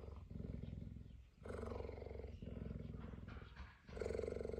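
Cheetah purring steadily in long rumbling phases, one with each breath in and out, with brief breaks between breaths.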